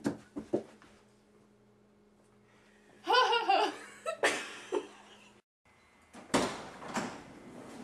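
A few soft knocks, then a person laughing briefly about three seconds in. After a short cut a steady rushing noise sets in near the end.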